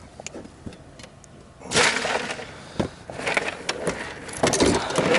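Bursts of rustling and a few knocks as a channel catfish is handled in a cloth on a plastic cooler lid. There are scattered sharp clicks at first, then louder rustling from about two seconds in.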